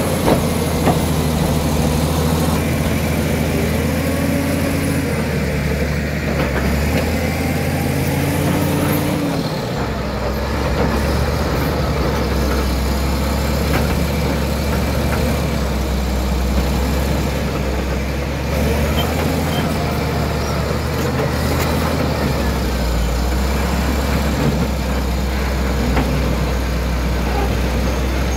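Caterpillar D7G crawler bulldozer's diesel engine running steadily at close range. About nine and a half seconds in, its note drops and evens out to a lower, steady hum.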